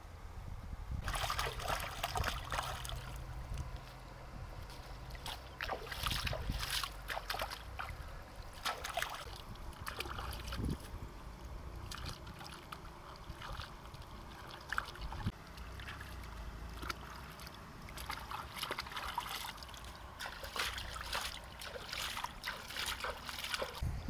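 Shallow river water splashing and sloshing as fish are washed by hand, in irregular bursts of splashes with short pauses between, over a low rumble.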